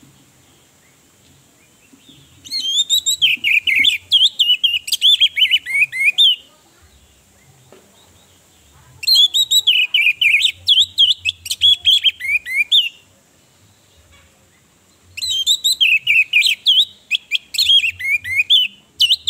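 Orange-headed thrush singing in full voice: three bouts of fast, varied, rich warbling notes, each about four seconds long, with pauses of about three seconds between them.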